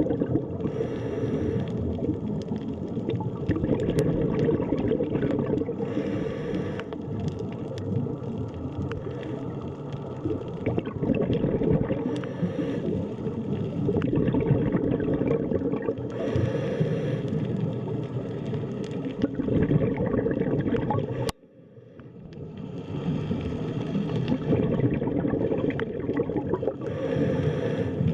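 Underwater ambience: a dense, low rush of gurgling water with fine crackling, and a higher hiss that swells about every five seconds. It cuts out suddenly about 21 seconds in, then fades back up.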